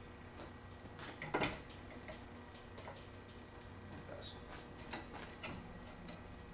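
Scattered light clicks and ticks, with a slightly louder knock about a second and a half in, as the adjustable clamp handle on a manual screen-printing press is worked to tighten the screen in place.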